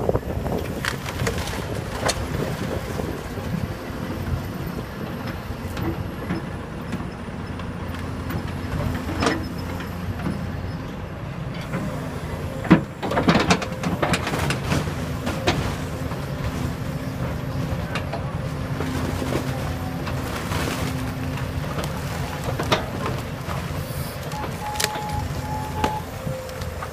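Hyundai hydraulic excavator's diesel engine running steadily under load as its bucket tears into a wood-framed house, with scattered cracks and crashes of splintering lumber, the loudest about halfway through.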